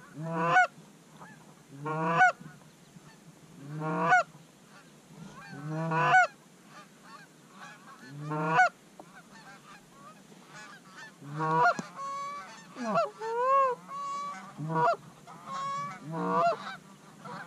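Canada goose honks: single calls about every two seconds, then a faster, overlapping string of honks and clucks from about eleven seconds in as the flock works in close.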